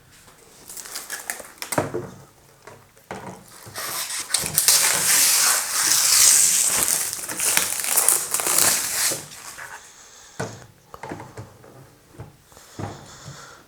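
Rustling, crinkling handling noise with scattered knocks and clicks, loudest and densest in the middle.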